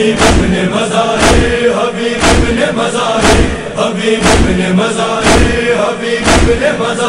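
Chorus of male voices holding a low chanted drone, the background of a Shia noha, over a deep beat about once a second.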